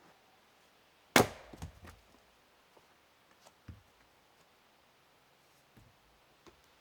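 A sharp knock of wood striking wood about a second in, followed by a few duller thuds as pieces land, then a few fainter knocks.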